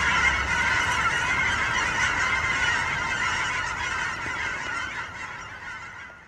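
A flock of waterfowl calling over one another in a dense, continuous chorus that fades out toward the end.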